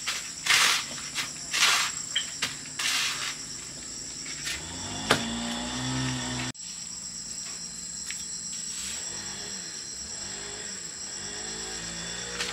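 Insects trilling steadily at a high pitch, with a few rasping strokes about a second apart in the first three seconds and a single click about five seconds in.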